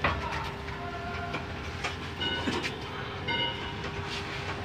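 Small steel wheel-trolley loaded with a bus spare wheel rolling on a concrete floor: casters rumbling with metal rattles and clicks, and two short squeaks about two and three seconds in.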